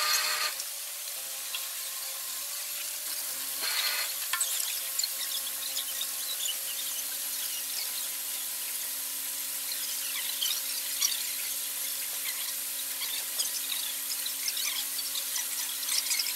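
Water rushing into a canal lock through the upper gate's sluices: a steady hiss with scattered splashy crackles. Two short high squeals come at the start and about four seconds in, and a faint steady low hum sets in after about five seconds.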